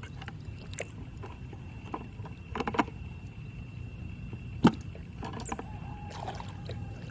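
Scattered knocks and splashing in water over a steady low rumble. A cluster of knocks comes about two and a half seconds in, and one sharp, loud knock about four and a half seconds in.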